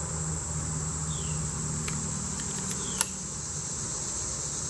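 Steady high-pitched insect drone with a short falling chirp repeating every second and a half to two seconds. About three seconds in comes a single sharp click: a revolver's hammer dropping on a dry-fire double-action trigger pull.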